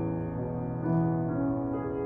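Solo piano playing slow, sustained chords that ring on, with new notes struck about a second in and again near the end.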